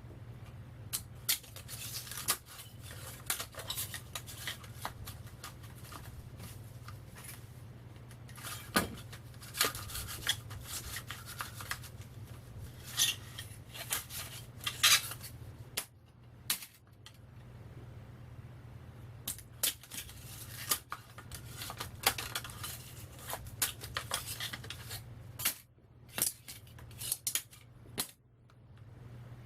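Thin steel transformer core laminations being worked loose and pulled out one by one: irregular metallic clicks, clinks and short scrapes of the sheets against each other, over a steady low hum.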